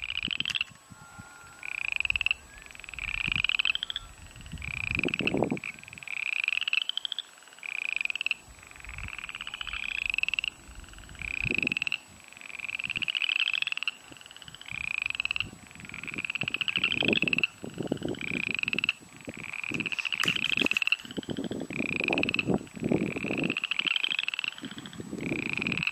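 A chorus of frogs calling: short pulsed trills that rise in pitch, repeating about once a second and overlapping one another.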